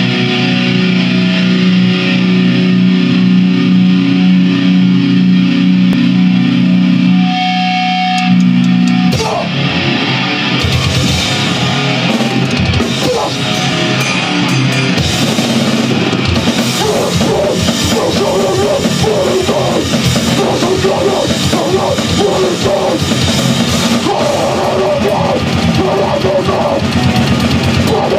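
Grindcore band playing: distorted electric guitar and bass hold a steady droning chord for about the first nine seconds, then the drum kit and full band come in fast and dense.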